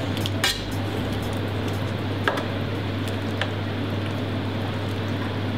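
Broad metal spatula stirring thick chicken korma in the stainless-steel pan of a FRIMA VarioCookingCenter, with three short sharp knocks of the blade against the pan about half a second, two seconds and three and a half seconds in, over a steady hiss and low hum.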